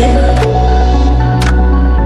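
Background music: a pop song with a pulsing bass line and sustained melodic notes, no singing in this stretch.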